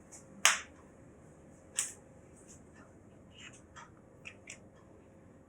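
Small sharp clicks and ticks from handling tiny laptop screws and a precision Phillips screwdriver while tightening the screws. Two louder clicks come in the first two seconds, then a few fainter ticks.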